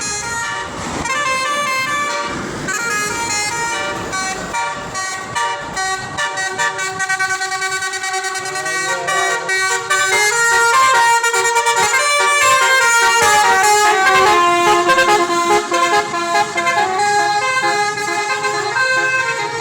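A bus's basuri musical horn playing a melody, with notes changing several times a second. It gets louder about halfway through.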